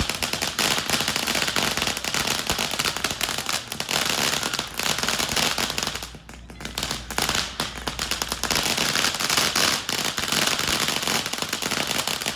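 Firecrackers going off in a rapid, continuous crackle of sharp pops that starts suddenly and keeps going, with a brief dip about six seconds in.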